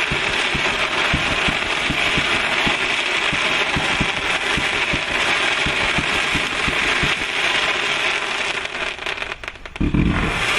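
A 152-shot automatic firework cake firing: dense crackling with many rapid pops. The crackling dies down briefly near the end, then a heavy low boom from another shot.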